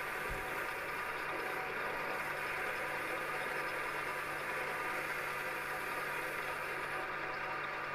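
Metal lathe running steadily with a turning and facing tool cutting a mild steel blank: a constant motor hum under the even noise of the cut.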